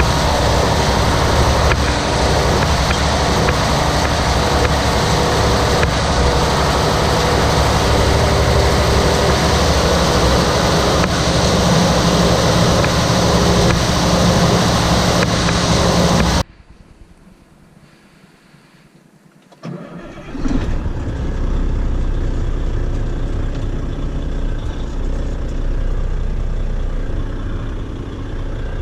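A heavy farm vehicle's engine running steadily and loudly. It cuts off suddenly about halfway through, then after a few seconds of quiet another steady engine sound comes in, lower and rumbling.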